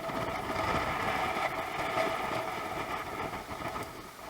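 An engine running steadily, a constant hum with a rough noisy rumble beneath it.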